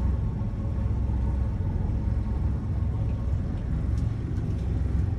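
Boat engine running steadily under way, a low even rumble with a light hiss of water and wind over it.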